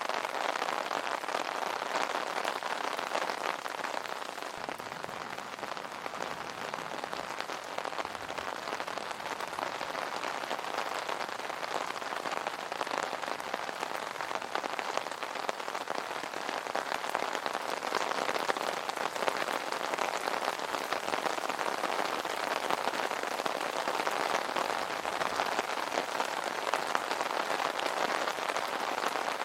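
Steady rain falling on an umbrella, a dense even rush of many small drop hits.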